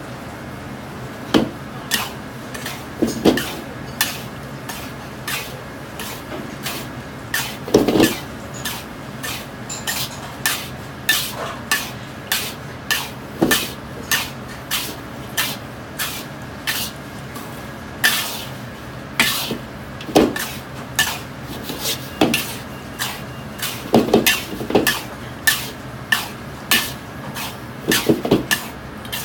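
Metal wok spatula scraping through dry-roasting salt and spices and clanking against the sides of an iron wok, in irregular strokes about once a second, over a steady hum.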